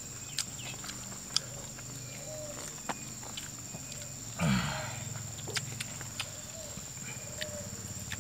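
People eating with their hands: small clicks of chewing, lip-smacking and fingers on food and leaves. One louder, short, breathy sound comes about four and a half seconds in. A steady high-pitched whine runs underneath.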